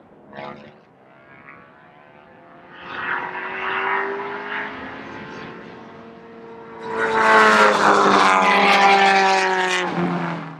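Race car engines running hard on a road course. One engine note swells about three seconds in, and a louder one comes in at about seven seconds, its pitch sliding slowly down before it cuts off near the end.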